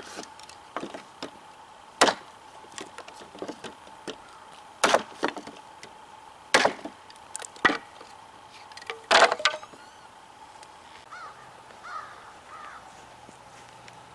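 A cKc Voyager chopping knife chopping through a board with light wrist-flick strokes: a handful of sharp, separate cracks as the blade bites and the wood splinters. A louder double knock comes about nine seconds in.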